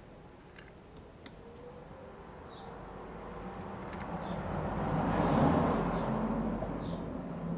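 A passing vehicle swells up and fades away, loudest about five and a half seconds in, with a few faint bird chirps.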